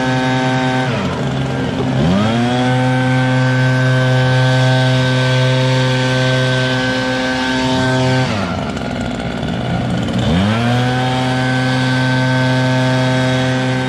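ECHO PB-8010 backpack leaf blower's two-stroke engine running at full throttle while blowing leaves. The throttle is let off twice, about a second in and again near eight seconds; each time the engine falls toward idle and then climbs back to full speed.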